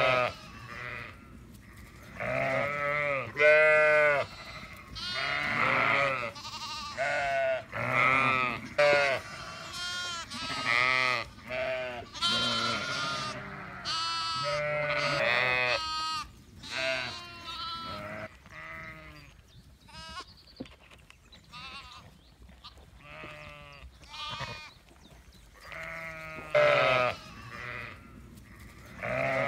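Sheep bleating, one wavering call after another, the calls thinning out for a while in the middle before picking up again.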